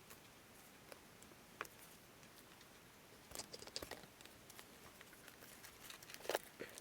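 Faint snips and paper sounds of decorative edge scissors cutting magazine paper: a few scattered clicks, a quick run of them about halfway, and a sharper one near the end.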